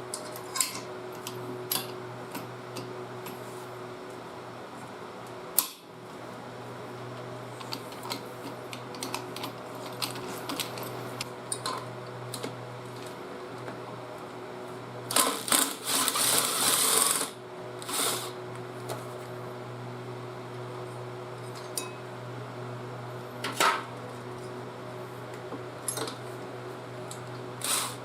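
Metal clinks and knocks of hand tools and engine parts being handled during engine disassembly, over a steady low hum. A louder rattling, hissing burst lasts about two seconds a little past the middle.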